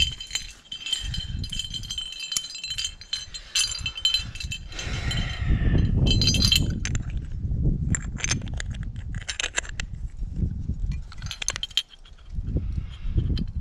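Aluminium climbing gear clinking and jangling as a bunch of wired nuts on a carabiner is handled and sorted, with ringing metal in the first half and sharp clicks after. A low rumble of handling noise lies underneath.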